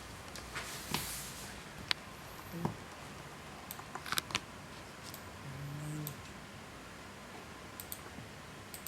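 Cat snoring: a low, drawn-out snore about five and a half seconds in and a fainter one near three seconds, with a few light clicks in between.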